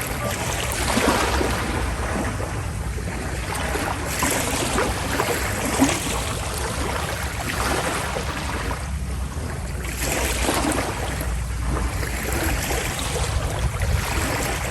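Passenger ferry under way: a steady low engine rumble under the rush of sea water and waves, the wash swelling and easing every few seconds.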